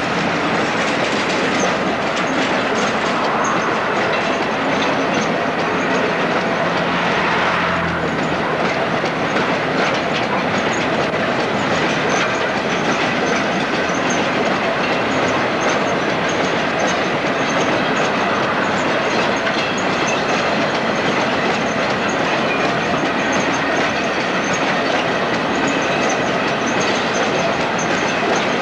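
British Rail Class 56 diesel locomotive passing close below with a coal train. Its Ruston-Paxman V16 engine is heard for the first several seconds, then dies away into a steady clatter of the coal hopper wagons' wheels rolling by.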